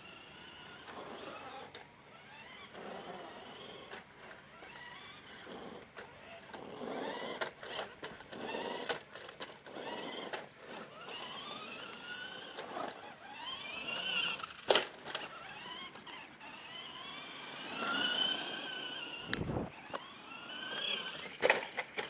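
Tamiya Lunch Box RC van's electric motor and gearbox whining, rising and falling in pitch again and again as it speeds up and slows down. A few sharp knocks come through, the loudest about two-thirds of the way in.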